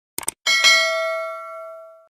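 A pair of quick clicks, then a bell dings, struck twice in fast succession, and rings out, fading away over about a second and a half.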